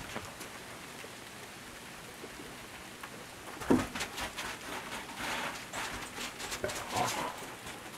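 Freezing rain pattering steadily on an ice-crusted wooden deck. From about halfway on, dogs' paws scuffle and click on the ice, with one short loud sound just before the scuffling starts.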